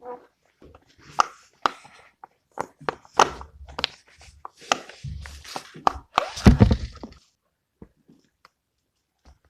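Pop-it silicone fidget toy being popped: irregular sharp clicks and soft pops, with two heavier thumps about five and six and a half seconds in, then it goes quiet near the end.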